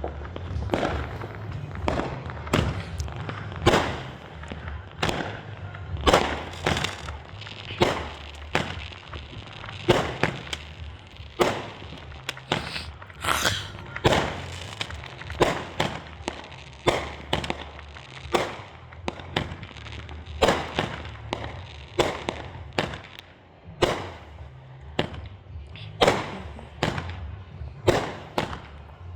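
Fireworks going off in a long, irregular series of sharp bangs and pops, about one or two a second, with a crackling burst about halfway through.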